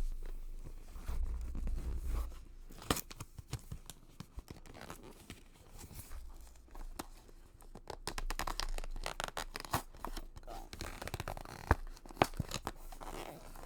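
Packaging of a boxed knitting kit being torn and pulled open by hand, with irregular tearing, crinkling and sharp clicks and snaps.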